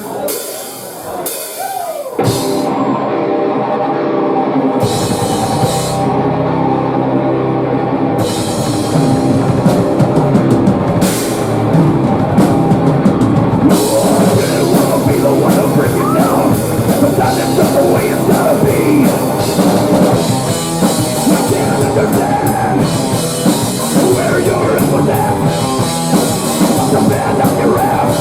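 Rock band playing live, loud and heavy: it starts thin over the first couple of seconds, a low end comes in around five seconds, and the full band with drum kit and cymbals is going from about eight seconds on.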